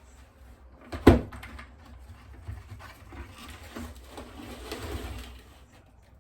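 Plastic cling wrap being pulled off its roll and handled, a crinkling, rustling sound, with a single sharp knock about a second in.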